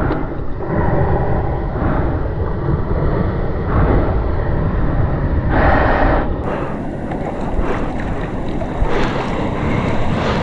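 Seawater sloshing and slapping against a GoPro held at the ocean surface, with wind buffeting the microphone and waves breaking. The sound comes in uneven rushes, with a louder, brighter rush of water about six seconds in.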